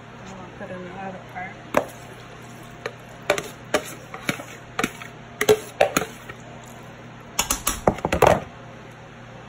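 A utensil knocking and scraping against a plastic plate and a glass baking dish as creamy macaroni is pushed off into the dish: a string of sharp clicks and taps, with a quick flurry of knocks near the end.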